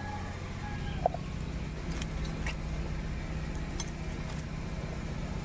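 Raw chicken pieces being cut on a boti, a fixed upright curved blade, with a few short sharp clicks scattered through. A steady low hum runs underneath.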